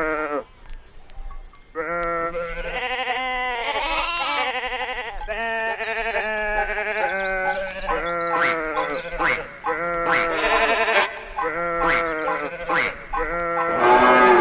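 Flock of sheep bleating, many calls overlapping, after a brief lull near the start. Sharp clicks are heard in the second half.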